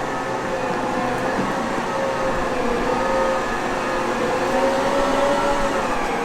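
Farm machinery running steadily, with a strong whine that wavers slightly in pitch over a constant mechanical noise.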